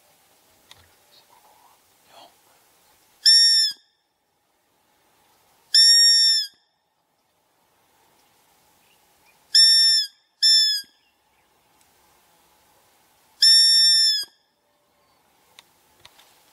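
Hunter's roe deer call (appeau) blown five times: short, clear, squeaky whistles at one steady pitch, each ending with a slight drop, imitating a roe doe's contact call to lure deer in.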